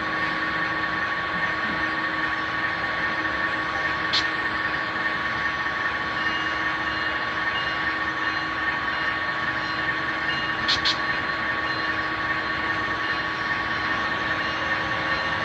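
Steady idling sound from an HO-scale Amtrak locomotive model standing at a station stop, an even hum and hiss with a few steady tones and no change in pitch. A short click comes about four seconds in, and a quick double click just before eleven seconds.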